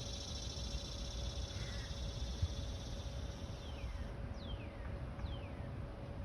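Outdoor background with a low rumble and a faint steady hum; in the second half, three short falling whistled calls of a bird.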